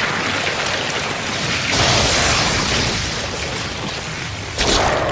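Anime explosion sound effect: a loud, sustained rushing rumble that swells about two seconds in and again near the end.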